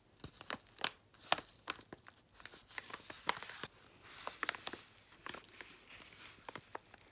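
Paper envelope being handled and turned over: crinkling and rustling paper with many sharp little crackles and clicks, and a few longer rustles.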